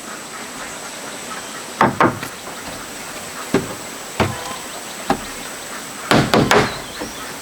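Hammer striking wood in irregular blows, single knocks a second or so apart, then a quick run of several strikes about six seconds in.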